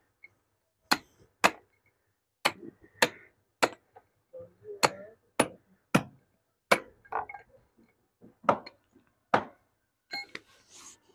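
Hammer striking a cold chisel, chipping concrete away around a PVC SWR drain pipe: about a dozen sharp strikes at an uneven pace, roughly one a second.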